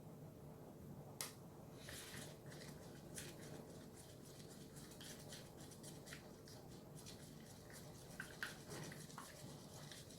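Slime mixture of glue, water and pink paint being stirred in a bowl: a utensil scraping and clicking against the bowl in quick irregular strokes, with a few sharper taps.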